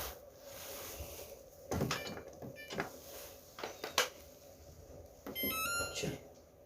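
Washing machine handled and operating, with a few sharp knocks and clicks, then about five seconds in a quick run of short electronic beeps stepping through different pitches.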